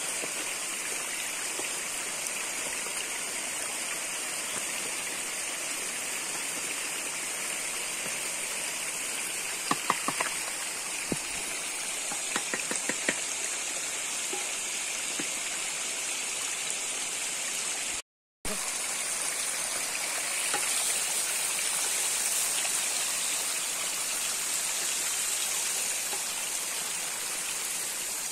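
Hill stream flowing with a steady rushing sound. A handful of short sharp clicks or knocks come about ten to thirteen seconds in, and the sound cuts out for a moment near eighteen seconds.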